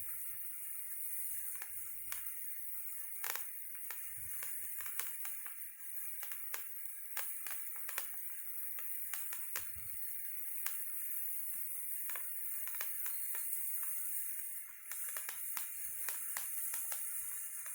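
Handheld sparkler firework (a World Class Fireworks Patriot Stick) burning: a steady fizzing hiss with irregular sharp crackles.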